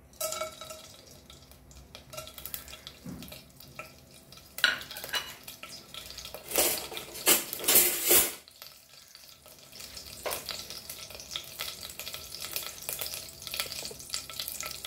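Whole spices (peppercorns, cloves, cardamom and a cinnamon stick) sizzling and crackling in hot oil in a stainless steel pot. The sizzle swells louder several times around the middle, then settles to a steady crackle.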